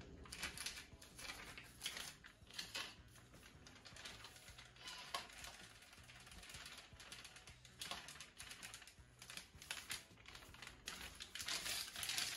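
Faint, irregular light clicks and taps of kitchen utensils and containers being handled while the flour coating is prepared, growing a little busier and louder near the end.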